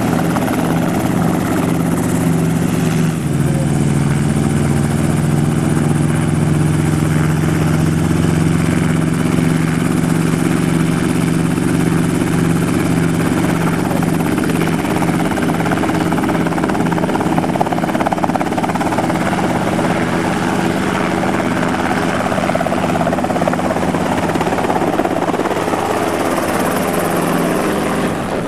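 Enstrom F-28C light helicopter running, its piston engine and rotor giving a steady sound that shifts in pitch about three seconds in. Near the end it lifts off and passes low overhead.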